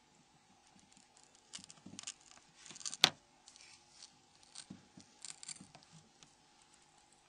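Light handling noises of metal tweezers and a plastic pry tool working a small circuit board loose from a mobile phone's frame: scattered faint scratches and clicks, with one sharp click about three seconds in.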